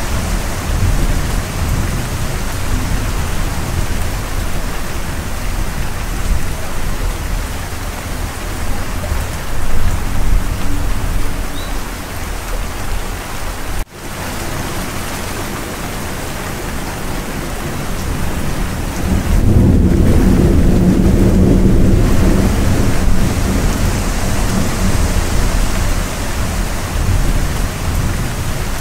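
Steady heavy rain in a thunderstorm, with a louder rumble of thunder swelling about two-thirds of the way through. The sound drops out for an instant about halfway through.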